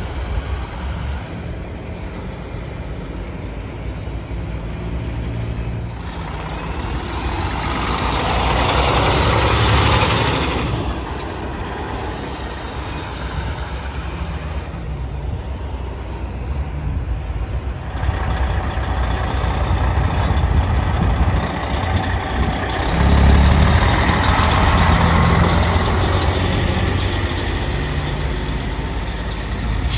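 Heavy diesel trucks pulling away: a tri-axle rotator wrecker's engine runs as it drives off, and later a semi tractor's diesel rumbles as it pulls out. The sound swells louder twice, about eight seconds in and again about twenty-three seconds in.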